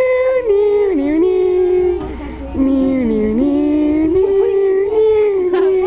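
A girl singing a slow melody in long held notes, one high voice that steps down in pitch and climbs back up, with a short break about two seconds in.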